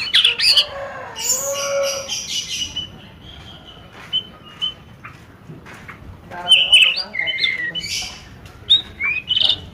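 Birds chirping and squawking in short, irregular bursts. The calls are loudest about a second in and again from about six and a half to nine and a half seconds.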